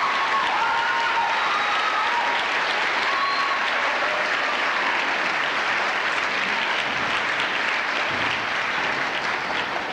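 Audience applauding, with a few voices calling out in the first seconds; the applause begins to die away near the end.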